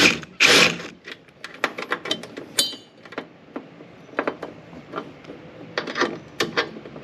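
Irregular clicks, taps and light rattles of hardware and tools being handled while a truck bed storage box fitting is reworked. A short louder scraping rush comes about half a second in.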